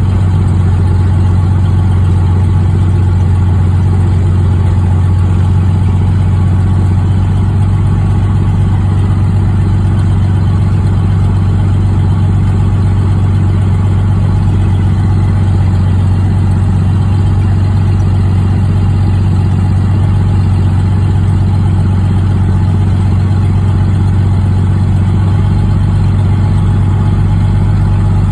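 Zlin 142C's Walter M337 inverted six-cylinder engine and propeller running steadily at taxi power, heard from inside the cockpit with a constant deep hum.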